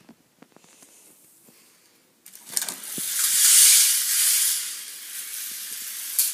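Toy roller coaster car running along its plastic track, a loud hissing rush that starts about two seconds in after a few faint clicks.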